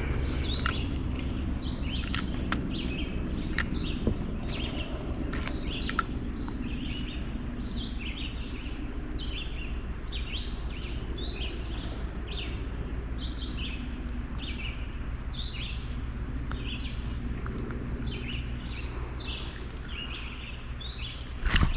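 Outdoor ambience with a bird calling over and over in short chirps. Under it run a steady high-pitched drone and a low rumble, and a few sharp clicks come in the first six seconds.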